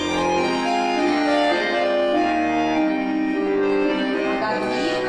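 Accordion playing a dance tune for a barre exercise: a melody over held chords, the notes sustained rather than dying away.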